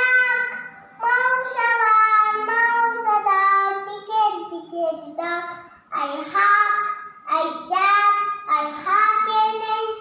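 A young girl singing a Malayalam song in phrases of held notes, with short breaks between them.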